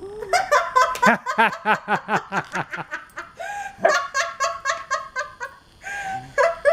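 People laughing hard in quick, rhythmic bursts, the laughter rising to a higher pitch about halfway through.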